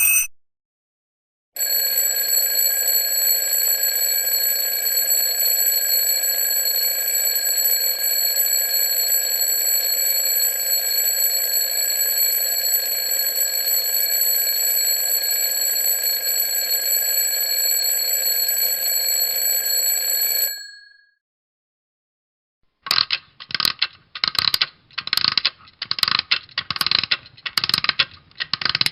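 Alarm clock sound effects: one alarm rings steadily with several fixed high tones for about nineteen seconds, then stops. After a couple of seconds of silence a second alarm starts, going off in short rapid bursts about once a second.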